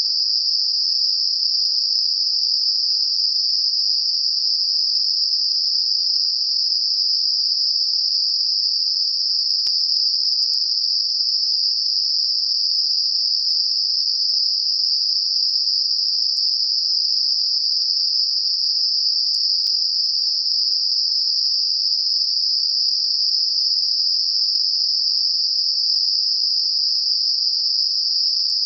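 Computer-generated narrow-band noise centred near 5 kHz: a steady, unchanging high-pitched hiss, made as a masker for high-frequency tinnitus.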